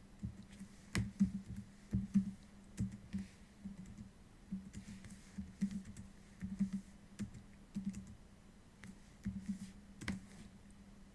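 Light irregular clicks and taps, coming in small clusters, over a steady low hum.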